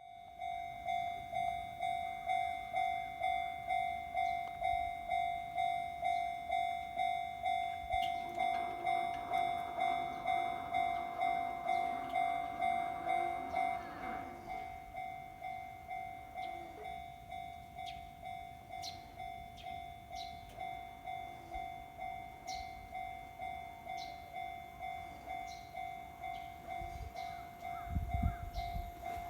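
Japanese level-crossing warning bell ringing in a steady, fast, repeating ding. A Kintetsu Minami-Osaka Line train rushes over the crossing from about 8 to 14 seconds in, after which the bell keeps ringing a little quieter. A low thump comes near the end.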